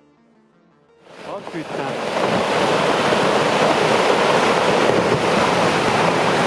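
Roar of a massive rockfall: a dense rushing noise that swells up about a second in, after faint music ends, and then holds steady and loud.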